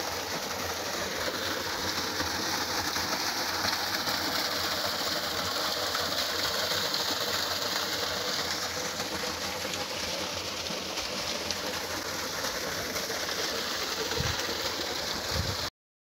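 Small waterfall spilling over rocks into a creek pool: a steady rush of falling water, with a couple of low bumps near the end before it cuts off abruptly.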